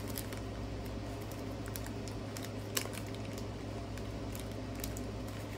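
Light, scattered clicks and faint rustling from handling small plastic zip bags of diamond painting drills, with one sharper click about halfway through, over a steady low hum.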